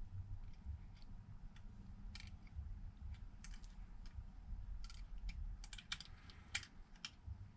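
Faint, irregular small clicks and taps of phone parts being handled as a replacement screen's flex cable is fed through the frame.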